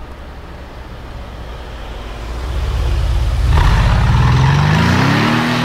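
Brabus-tuned Mercedes-Benz G500 4x4² with its 4.0-litre twin-turbo V8, running low at first, then accelerating past close by. The engine note grows louder about two seconds in and rises steadily in pitch over the last two seconds.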